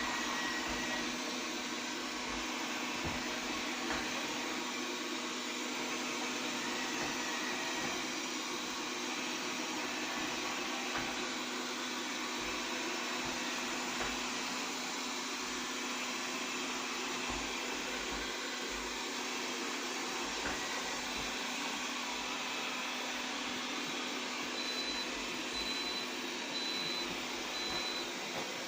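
Xiaomi Mi Robot Vacuum-Mop P running: a steady motor hum with hiss. Four faint short high beeps come near the end.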